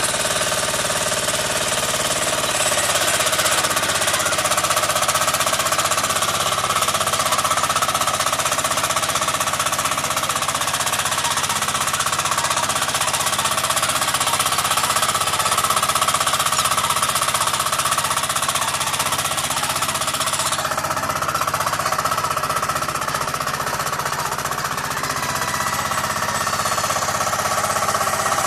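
Walk-behind rotary tiller's small engine running steadily under load with a rapid knocking beat as the tiller works the dirt.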